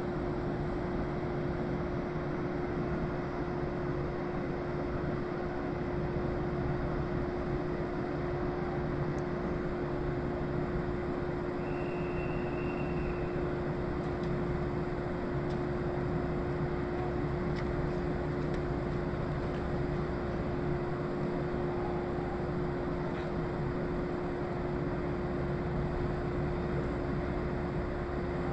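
Steady hum of a stationary 413/455-series electric train's onboard equipment running, one constant tone over an even drone. A short faint high beep sounds about twelve seconds in.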